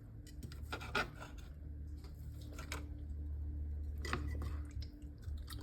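A few short scrapes and clicks of utensils working at a chopping board, over a steady low hum.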